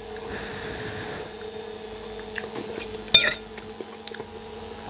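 A metal fork clinks once against a ceramic bowl of macaroni about three seconds in, with a few lighter taps and quiet chewing, over a steady low hum.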